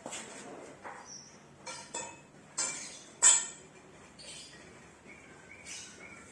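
Scattered metal clinks and knocks of tools and exhaust parts being handled while a scooter exhaust is fitted, the loudest a sharp clank about three seconds in. Faint bird chirps sound in the background.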